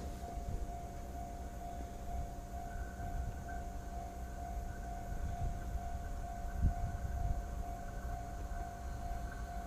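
Japanese railway level-crossing alarm ringing its electronic bell, one steady tone repeating about twice a second: the warning that a train is approaching. A low rumble runs underneath, with a brief thump about two-thirds of the way through.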